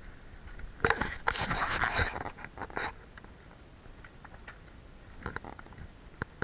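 Handling noise from a handheld camera being turned around: about two seconds of close scraping and knocking starting about a second in, then a few faint clicks and scuffs.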